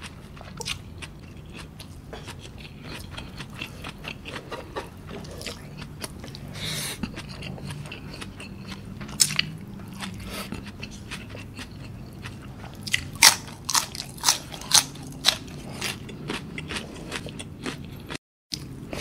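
Close-miked chewing of a mouthful of rice and raw ulam: crisp crunches and wet mouth clicks, louder and thicker about two-thirds of the way through. The sound cuts out for a moment near the end.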